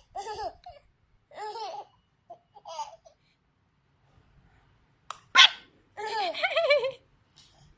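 Baby laughing in short bursts of giggles, then a pause, a sharp short biting sound about five seconds in, and another longer run of laughter with falling pitch.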